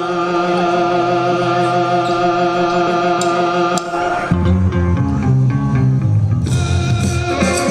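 Music: a held chord rings for about four seconds, then a heavy bass line and beat come in, with cymbals added near the end.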